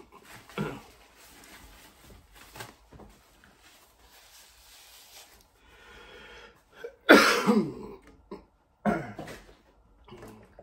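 A man coughs twice, loudly, about seven seconds in and again about two seconds later. Before that come light taps and rustles of cardboard food packaging being handled.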